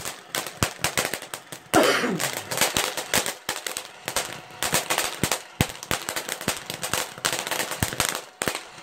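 Fireworks crackling: many quick, irregular pops and cracks, with a short falling tone about two seconds in.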